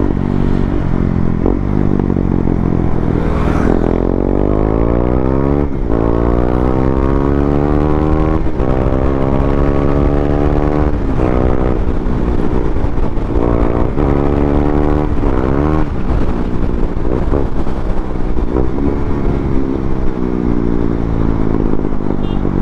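KTM Duke 390's single-cylinder engine through an aftermarket barrel exhaust, accelerating hard through the gears: the pitch climbs and breaks at three quick upshifts, then holds and slowly drops as the throttle eases near the end.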